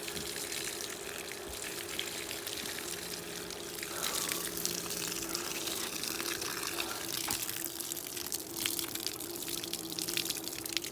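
Water running steadily, with a steady low hum underneath and scattered small clicks; it grows a little louder about four seconds in.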